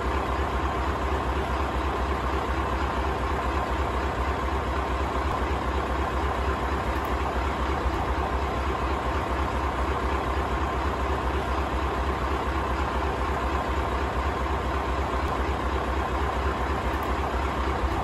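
Scania LBS141's 14-litre V8 diesel engine idling steadily, an even, low pulsing beat that does not change.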